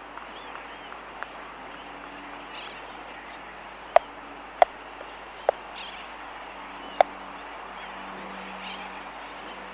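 Laysan albatrosses clicking at close range in a nesting colony: a small click about a second in, then four sharp, loud clicks in the middle, over a faint distant chatter of sooty terns and a low steady hum.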